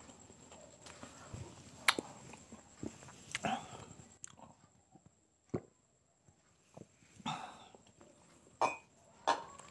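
Close-miked eating sounds from a quail balut mukbang: wet chewing and slurping, broken by a few sharp clicks of tableware. Midway it goes quiet while he drinks from a glass of water, with one sharp click.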